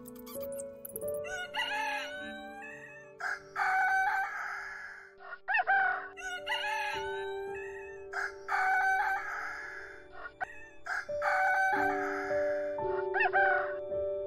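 Rooster crowing three times, each crow a short broken opening followed by a long held note, over background music with sustained notes.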